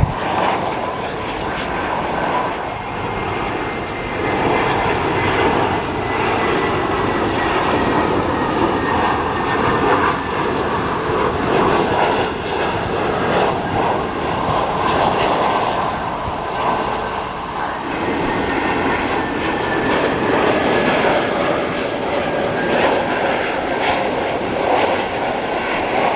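Jet airliner on approach to land, its engines running with a steady rushing noise and a faint whine that falls slowly in pitch as it passes.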